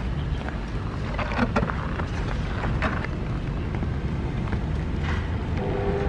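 Steady low rumble of wind buffeting the microphone outdoors, with a few faint clicks and knocks in the first few seconds.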